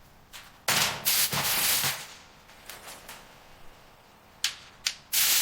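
Construction work noise: a loud burst of rattling, crackling clatter lasting about a second and a half, then quieter scattered knocks and three short sharp bursts near the end.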